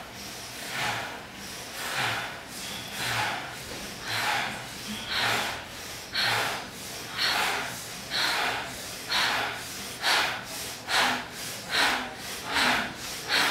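A group of people breathing together in unison, rhythmic audible breaths about one a second that grow louder, sharper and a little faster toward the end.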